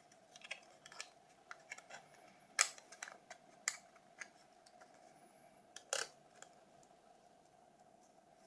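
Scattered small clicks and taps of plastic phone parts being handled and pressed into place while fitting a rebuilt Nokia 282 battery, with two sharper clicks about two and a half and six seconds in. A faint steady hum runs underneath.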